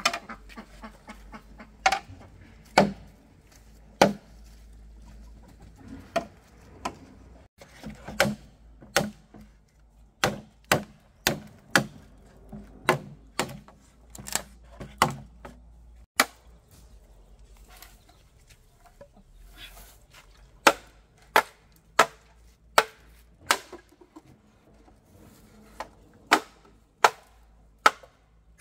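Sharp chopping knocks, a blade striking something firm, repeated in runs of about two a second with pauses between. Chickens cluck in the background.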